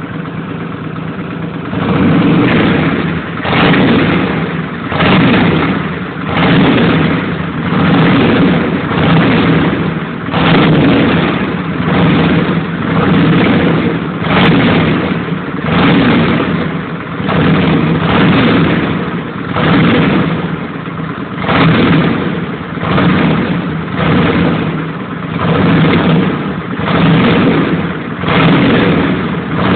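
Honda Shadow V-twin motorcycle engine breathing through a modified aftermarket exhaust. It idles briefly, then is blipped over and over, revving up and dropping back about every second and a half.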